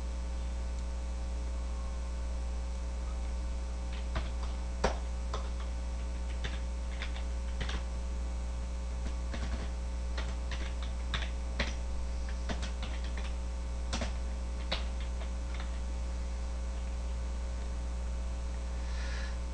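Computer keyboard keys clicking in scattered bursts of typing, starting about four seconds in and stopping around fifteen seconds, over a steady electrical mains hum.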